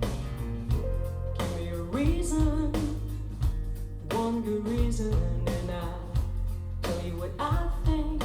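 A rock song with a female singer, electric guitar, bass and drums, played back through Wharfedale Diamond 225 bookshelf speakers. It has a full, steady bass line and regular drum beats.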